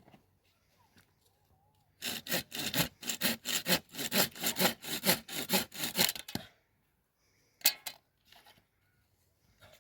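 A hand saw cutting wood in quick, regular back-and-forth strokes for about four seconds before stopping. A single short, sharp sound follows a second later.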